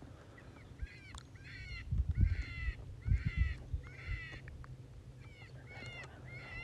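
A series of short, high-pitched animal calls, each arching up and down, repeated about once or twice a second, with a few low thumps of handling noise about two to three and a half seconds in.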